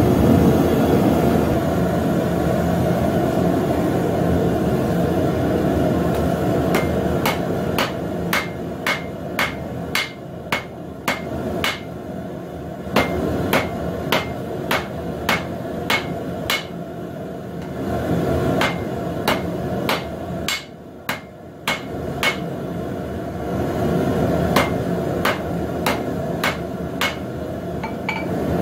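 Hammer blows on hot square steel stock at the anvil, drawing the end out to a four-sided taper, about two blows a second with a bright anvil ring. The blows start about a quarter of the way in and pause twice briefly, over a steady low rushing noise that drops away for a moment a little after the middle.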